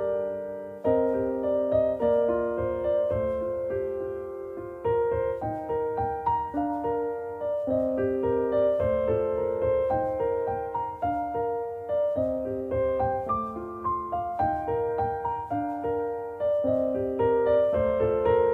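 Soft background piano music, a gentle melody of single notes and chords played at an even pace.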